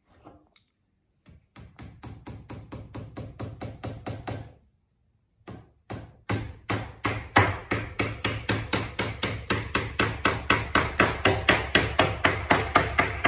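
Hammer driving small nails into the back panel of a flat-pack wardrobe cabinet: a run of quick, even taps about four a second, a short pause, then a longer, louder run of taps.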